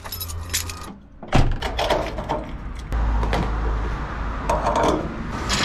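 A door shutting with a single loud knock, then clicks and knocks of a diesel pump nozzle and fuel cap being handled at a truck's fuel tank, over a low steady rumble.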